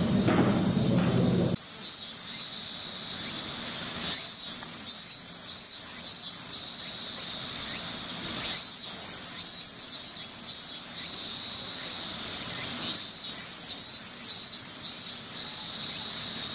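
Insects chirring in a steady high band, with pulsing chirps repeating above it. A lower murmur is heard for the first second and a half, then cuts off suddenly.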